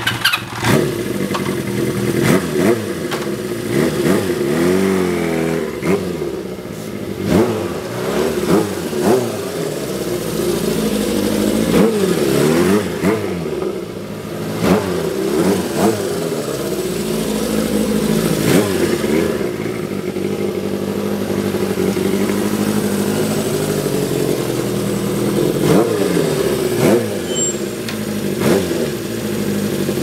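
Honda CB400Four's air-cooled inline-four running through a Yoshimura four-into-one collector exhaust with the silencer baffle fitted. It starts up, then revs up and falls back again and again as the bike is ridden slowly through the gears.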